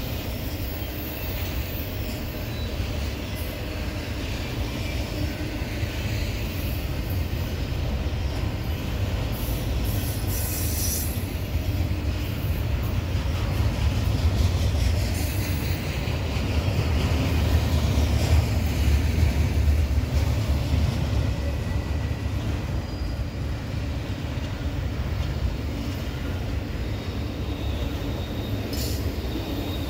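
Double-stack intermodal freight cars rolling past on the rails: a steady low rumble of wheels on track that builds to its loudest about two-thirds of the way through. Brief high-pitched wheel squeals come about a third of the way in and again near the end.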